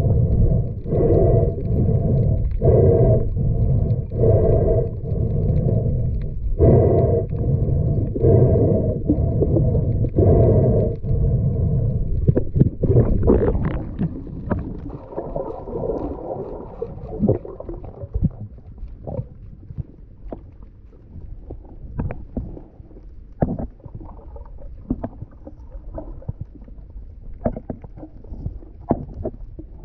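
Underwater sound of a snorkeler swimming and diving for sea urchins. There are rhythmic pulses of water noise about once a second for the first twelve seconds or so. Then the water is quieter, with scattered sharp clicks as the spiny urchins are handled among the seagrass and put into a net bag.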